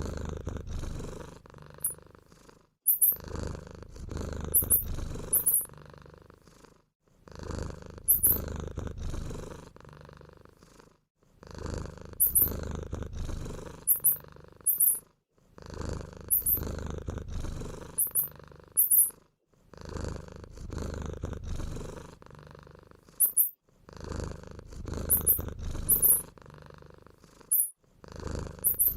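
Cat purring in stretches of about four seconds with short breaks, repeating evenly like a loop. Short, very high squeaks in twos and threes sound over the start of each stretch.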